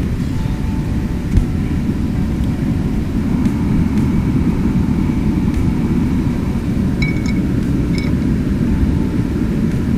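Steady low rush of a river, with two short metallic clinks about seven and eight seconds in as a small frying pan is set on a backpacking propane stove.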